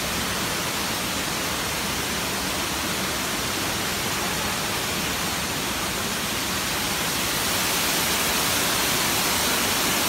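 Steady rush of water falling down the cliff face of Asik-Asik Falls into its pool, growing a little louder near the end.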